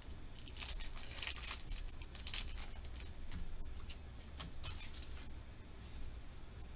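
A Pokémon trading card booster pack's foil wrapper crinkling as it is torn open, followed by lighter rustling as the cards are slid out and flipped through.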